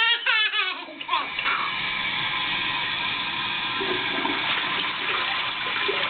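Toilet flushing: a steady rush of water running through the bowl, after a toddler's brief high-pitched voice in the first second.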